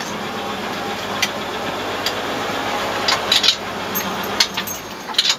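1948 Chevrolet Thriftmaster pickup's 216 cubic-inch straight-six idling steadily, heard from inside the cab, with a few light knocks and clicks over it.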